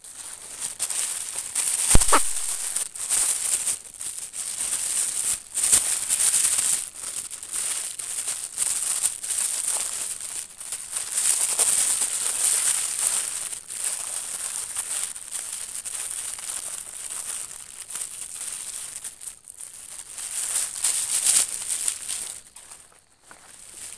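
Continuous close rustling and crinkling with many small crackles, and a sharper knock about two seconds in.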